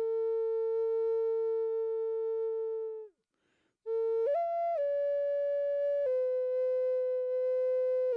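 Flute playing a slow meditative melody of long held notes. The opening note is held for about three seconds and trails off into a short pause with a faint breath. The melody then resumes, rises briefly to a higher note and settles on another long held tone.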